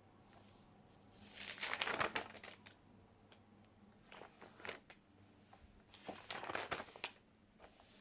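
Crinkling, rustling handling noise in three short bursts: about a second and a half in, around four seconds and around six seconds in.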